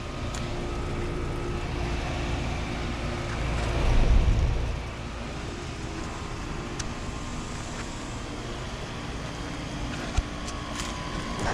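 Outdoor air-conditioner condensing units running: a steady fan and compressor hum carrying a few steady tones, with a low swell about four seconds in and one sharp click near the end.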